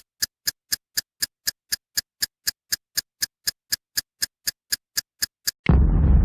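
Steady ticking, about four ticks a second, then about five and a half seconds in a sudden loud explosion with a deep rumble that starts to die away.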